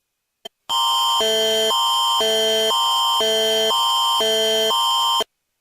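Canadian Alerting Attention Signal of an Alberta Emergency Alert broadcast: an electronic alert tone that switches between a higher chord and a lower chord about every half second over a steady high tone. It runs for about four and a half seconds, starting just under a second in, and cuts off abruptly. It marks the start of a critical emergency alert.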